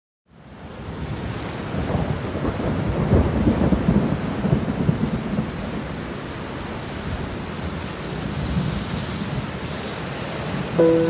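Steady rain with a low rumble of thunder, loudest a few seconds in. It fades in after a moment of silence, and sustained music notes begin right at the end.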